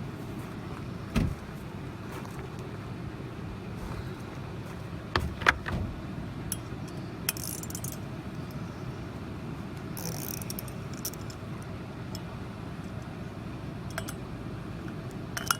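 Scattered metallic clinks and short rattles of hand tools and loose metal parts being handled, over a steady low background hum.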